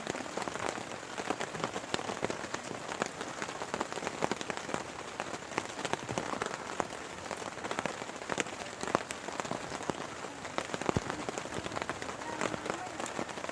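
Heavy rain falling steadily, with many sharp drop hits peppered through the hiss.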